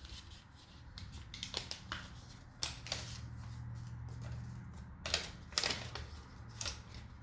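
Hands handling small computer parts and their packaging: scattered plastic clicks and rustles, several sharp clicks a few seconds apart, over a low steady hum.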